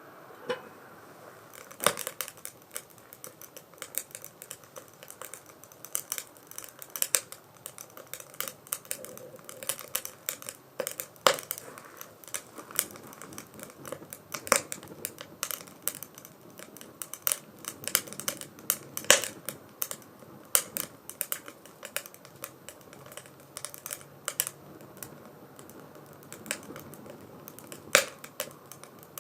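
Firewood burning in a 2×4 STOVE fire stand, crackling with many irregular sharp pops and snaps of varying loudness over a faint steady rush of flame.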